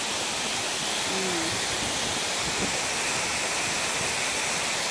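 Waterfall rushing steadily, an even roar of falling water with no break. A brief faint voice is heard about a second in.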